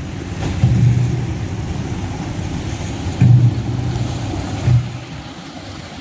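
Engine-driven pump on a sand-dredging boat running with a steady low hum that swells about three times, lifting sand from the riverbed through a pipeline.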